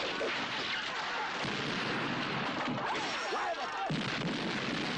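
Movie battle sound effects: a continuous din of blasts and crashes with men yelling, and a heavier, deeper blast coming in near the end.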